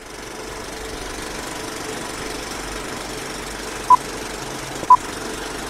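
Old film projector sound effect: a steady mechanical rattle of film running through the projector, with two short, high countdown-leader beeps one second apart about four seconds in.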